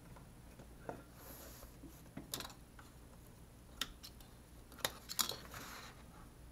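A few scattered light clicks and a faint paper rustle as the paper stitch sample is handled and taken off an industrial sewing machine; the machine is not running.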